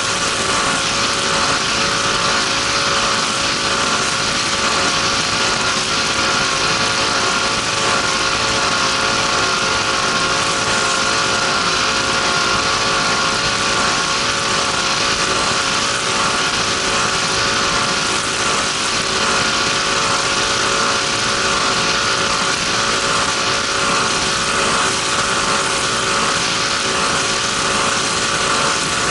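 Race power boat's engine running hard at a steady, unchanging pitch, heard from on board over an even hiss of wind and water rushing past.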